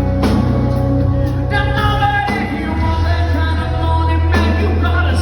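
A rock band playing live, with a strong steady bass line under the band and a voice singing in phrases.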